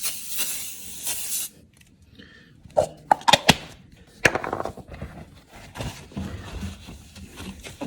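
Trigger spray bottle of ammonia-free glass cleaner spraying onto glass, several squeezes of hiss for about the first second and a half. Then a few sharp clicks, and a louder knock at about four seconds in.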